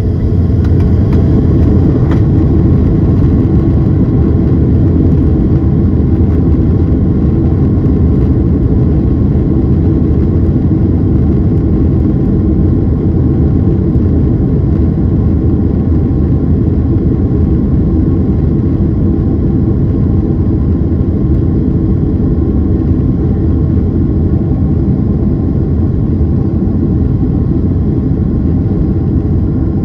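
The Boeing 767-300ER's two General Electric CF6 turbofans at takeoff thrust during the takeoff roll, heard inside the cabin behind the wing: a loud, steady, deep noise that holds level throughout.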